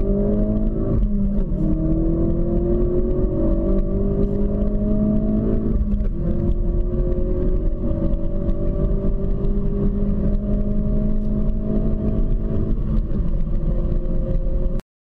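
Ford Focus RS 2016 2.3-litre turbocharged four-cylinder accelerating hard, its engine note climbing steadily in pitch. The pitch drops sharply at upshifts about a second in and about six seconds in. The sound cuts off abruptly near the end.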